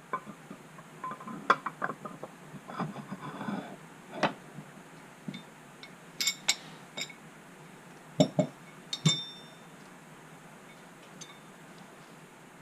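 Metal parts of a Wilton vise clinking and knocking together as they are handled and fitted during reassembly: a quick run of small clicks and clinks in the first few seconds, then a few louder knocks about eight and nine seconds in, one ringing briefly.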